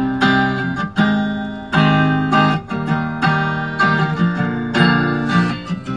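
Guitar intro of a song: chords strummed or picked about once a second, each ringing on until the next, with no voice and no drums.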